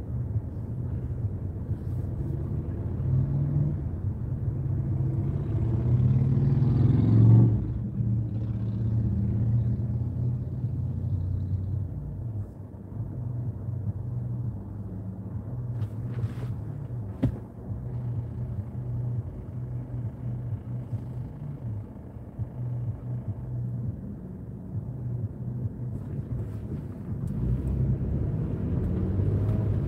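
Vehicle engine idling, heard from inside the cab while stopped, with cross traffic going by; one vehicle passes louder about seven seconds in. Near the end the engine note rises as the vehicle pulls away.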